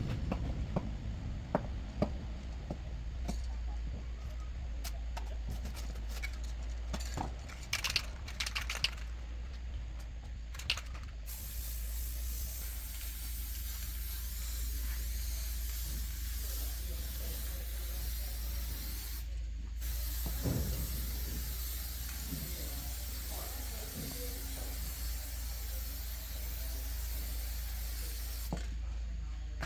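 Clicks and knocks, then from about eleven seconds in a steady spraying hiss that breaks off briefly near the twenty-second mark, over a constant low hum.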